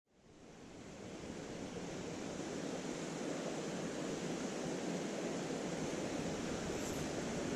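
Steady rush of a mountain stream's flowing water, fading in over the first second or two and then holding even.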